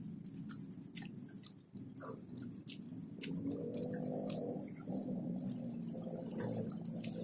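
Crisp cracks and snaps from a blade cutting through a brittle oven-baked sheet of dried fish fillet and seaweed: many sharp, irregular crackles. A low steady hum runs underneath, coming up from about three seconds in.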